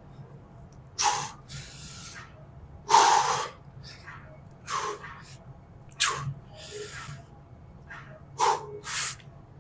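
A weightlifter's sharp, forceful breaths in and out during a set of barbell bench presses, about one every one to two seconds, over a faint steady low hum.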